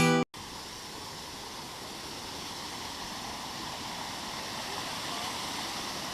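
Steady rush of falling water from a waterfall, an even noise without rhythm that swells slightly; acoustic guitar music cuts off just as it begins.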